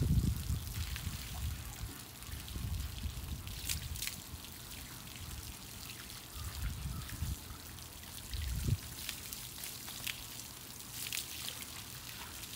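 Garden hose water running and splashing over a dog's wet coat as it is rinsed, with scattered sharp splashes and a few dull low thumps.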